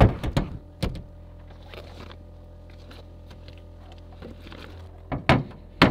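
A few sharp knocks and handling bumps as the camera is set down on the truck's metal bed, then a steady low hum, with two more knocks near the end as things are put down on the bed.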